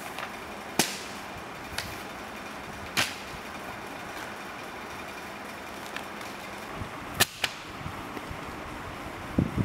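Pages of a spiral-bound notebook and loose papers being flipped and handled, giving several short, sharp paper snaps over a steady background hiss, with a couple of dull knocks near the end.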